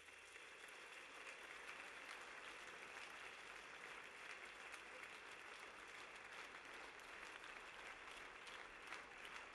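Audience applauding steadily, faint, after the music has ended.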